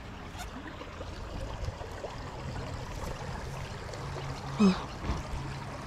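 Creek water flowing and trickling steadily. About four and a half seconds in comes a brief pitched sound, the loudest moment.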